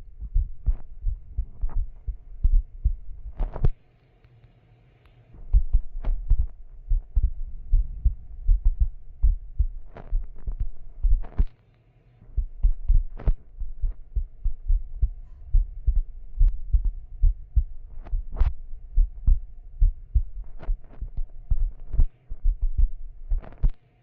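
Close handling noise: irregular dull low thuds and knocks with a dozen or so sharp clicks, over a faint steady hum, broken by a few brief pauses.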